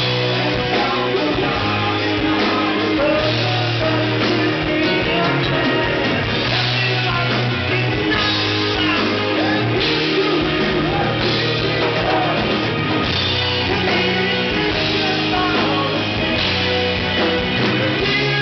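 A hard rock band playing live: electric guitars, bass guitar and drums at a steady loud level, with a singer's voice over the band.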